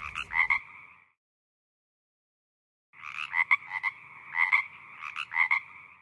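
A frog calling in pulsed, rattling croaks: one call ending about a second in, then after a pause a run of repeated croak bursts from about three seconds in.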